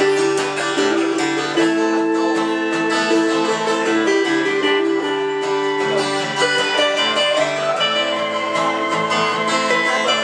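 Instrumental break in a live country-folk song: two acoustic guitars strummed and picked over held keyboard notes, with no singing.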